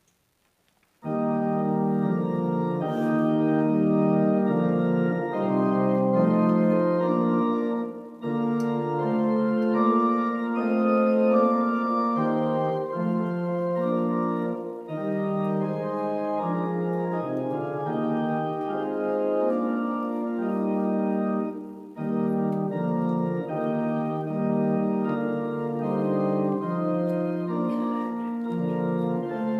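Church organ playing held chords, starting suddenly about a second in, with short breaks between phrases near 8 and 22 seconds.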